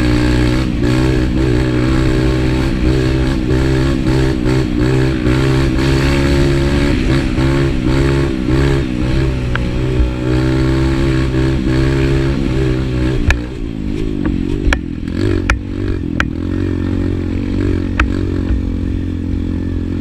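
Dirt bike engine running hard at high, steady revs, then about thirteen seconds in easing off to lower, uneven revs. Several sharp knocks come through in the later part.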